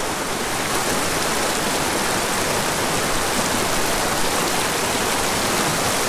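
Small mountain creek rushing steadily over rocks through shallow riffles.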